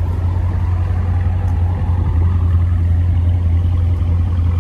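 Dodge Challenger SRT's Hemi V8 idling with its mufflers deleted: a loud, steady, deep exhaust rumble from the tailpipes.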